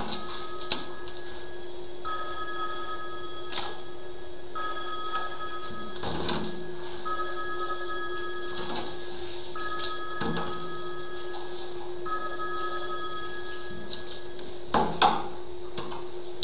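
A mobile phone ringing unanswered: an electronic two-tone ringtone in rings of about a second and a half, repeating every two and a half seconds. A steady low hum runs underneath, and a few sharp knocks come through, the loudest a pair near the end.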